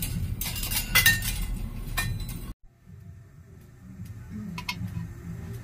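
Cookware being handled on a cooktop: several sharp clinks and knocks of a pot and utensils in the first couple of seconds, over a low hum. After a brief cut-out about two and a half seconds in, a few fainter clicks follow.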